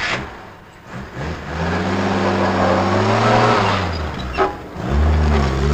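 Engine of an old ambulance truck revving as it drives off, its pitch climbing, then dropping at a gear change and climbing again near the end, with a short sharp noise in between.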